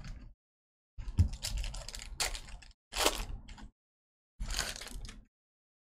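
Trading cards and packs being handled in a box break: a few bursts of crisp clicking and rustling as cards are slid and flipped through.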